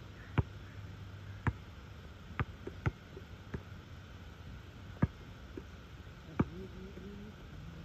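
Basketball bouncing on an asphalt court: about eight sharp thumps at irregular intervals.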